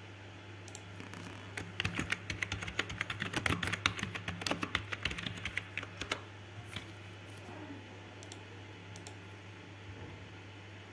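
Typing on a computer keyboard: a quick run of keystrokes for about four seconds, then a few scattered clicks.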